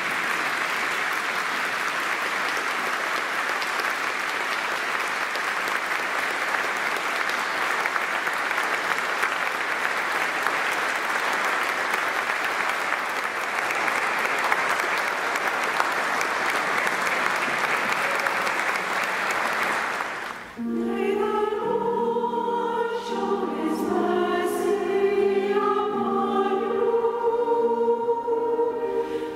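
Congregation applauding steadily in a cathedral for about twenty seconds; then the sound cuts off abruptly and a mixed choir starts singing.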